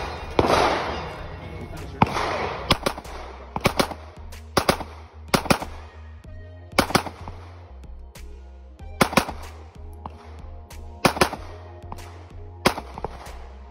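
Semi-automatic pistol shots fired one after another at an irregular pace, often in quick pairs, more than a dozen in all, with background music underneath.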